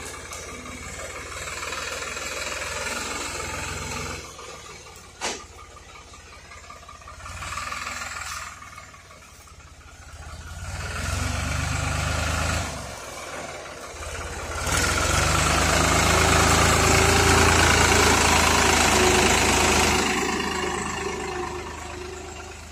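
New Holland TT55 tractor's diesel engine running as the tractor drives along a dirt track, rising and falling in loudness and loudest for about five seconds in the last third. A single sharp click about five seconds in.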